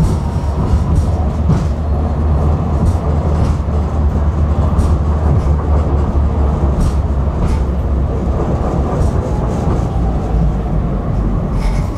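Tram running along its rails, a steady low rumble of wheels on track with occasional short clicks.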